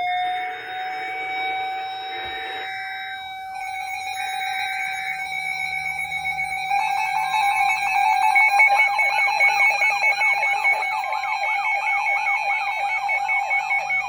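Tornado warning siren sounding a steady tone after winding up. About seven seconds in, a second, rapidly warbling siren tone joins it.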